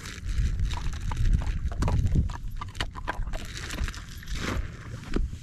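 Wind buffeting the microphone with a low rumble, over scattered small crunches and clicks of a dog's paws moving on loose rock and gravel.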